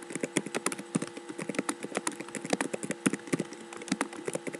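Typing on a computer keyboard: a quick, irregular run of keystroke clicks, several a second, with a steady low hum underneath.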